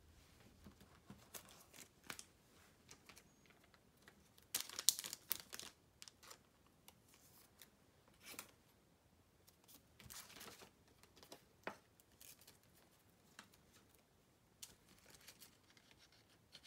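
Faint rustling and scraping of trading cards and thin plastic being handled, with brief louder rustles about five seconds in and again around ten seconds.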